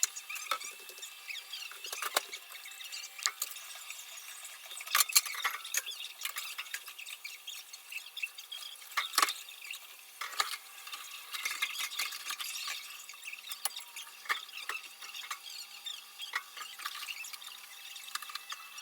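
Dishes and cutlery clinking and clattering as they are handled and put away, an irregular run of sharp clicks and knocks, busiest from about five to eleven seconds in.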